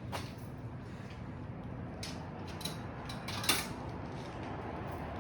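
A few scattered light mechanical clicks and clanks over a steady low hum.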